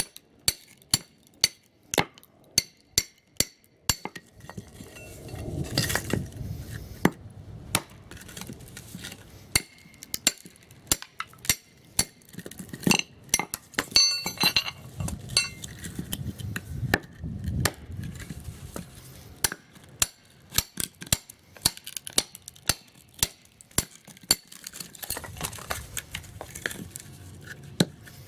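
Hard objects clinking and knocking in quick succession, a few sharp strikes a second, broken by stretches of low rustling handling noise.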